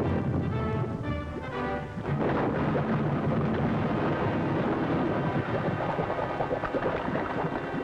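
Orchestral cartoon score played over a continuous heavy rumble of explosions, the depth-charge attack on submarines.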